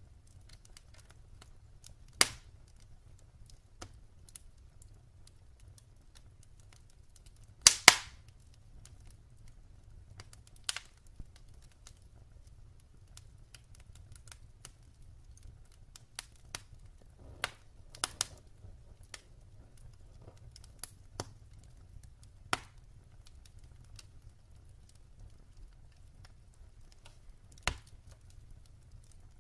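Wood fire in a fireplace crackling: scattered sharp pops and snaps over a low rumble, with a loud double pop about eight seconds in.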